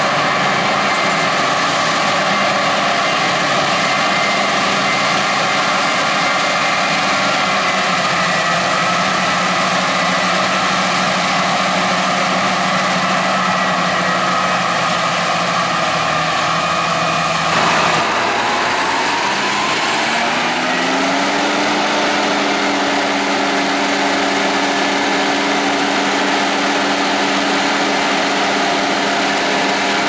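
Krone BiG X 530 self-propelled forage harvester running under load while chopping maize: a steady engine note with a high-pitched whine from the chopping and blowing gear. A little over halfway in the sound breaks off, and the engine and whine then climb in pitch as the machine winds up again before holding steady.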